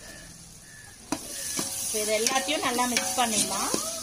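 Metal spoon stirring spice powders into a sizzling onion and curd masala in a large metal pot. It clacks against the pot about a second in, then scrapes with squeaky, bending tones over a steady sizzle.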